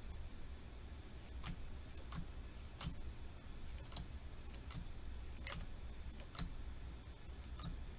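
Pokémon trading cards being flipped through one at a time in the hands, each card slid off the stack with a short sharp click, about eight in all at an uneven pace, over a steady low hum.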